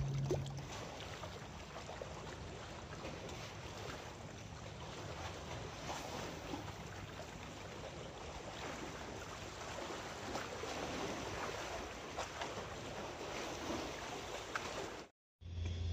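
Sea waves washing against the concrete blocks of a breakwater, with wind buffeting the microphone.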